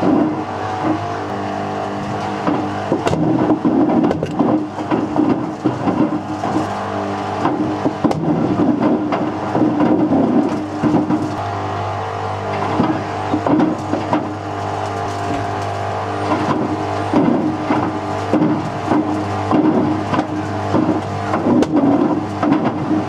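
Whirlpool WWDC 7210/1 washing machine running, its motor giving a steady hum while a brick tumbles in the turning drum, knocking and clattering irregularly against the drum.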